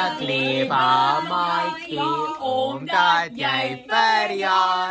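A group of men and women singing together without accompaniment, in a run of held, sustained notes.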